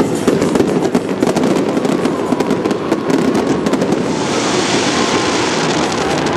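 Aerial fireworks going off in a rapid run of sharp cracks and bangs. About four seconds in, a dense crackling hiss takes over and then eases off.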